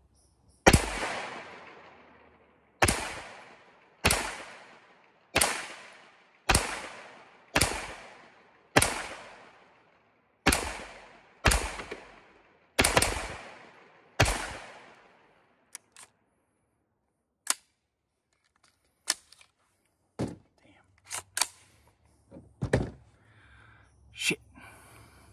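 9mm AR-style pistol firing about eleven unhurried single shots, roughly one a second, each followed by a long echoing tail. The firing then stops with the failure to chamber that this build still suffers, and scattered metallic clicks and knocks follow as the gun and magazine are handled.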